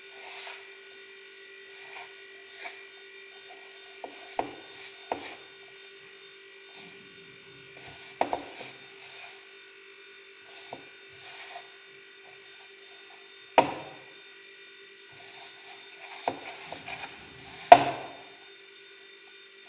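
Brioche dough being kneaded by hand in a bowl: soft rubbing broken by a handful of sharp knocks, the loudest near the end, over a steady hum.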